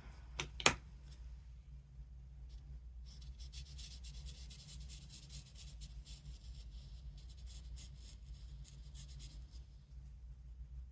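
Felt-tip Versamark marker scratching across hot-press watercolour cardstock in short, continuous strokes as it colours in a stamped image. Two sharp clicks come just before that, under a second in. A steady low hum underlies it.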